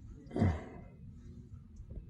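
A single short, breathy vocal sound from a person about half a second in, over low background noise.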